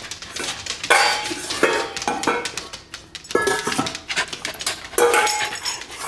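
Dog bowls clattering and clinking as they are picked up and handled, while excited dogs give short whines and yips.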